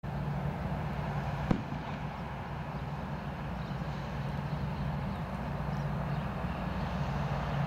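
Boeing 787-8 Dreamliner's jet engines running steadily as the airliner rolls along the runway: a low, even hum over a broad rumble. A single sharp click about one and a half seconds in.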